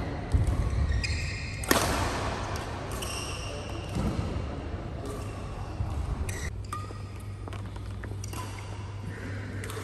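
Badminton play on an indoor court: two sharp racket-on-shuttlecock hits early on, then a few short high squeaks of court shoes on the mat.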